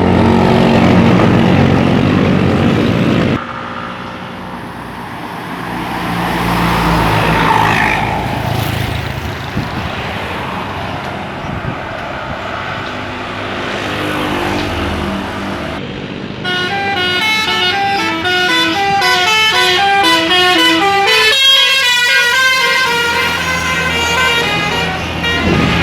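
Buses passing with engine and traffic noise, then a bus's telolet multi-tone musical horn plays a quick stepping melody, the notes jumping up and down several times a second, for roughly nine seconds before it stops.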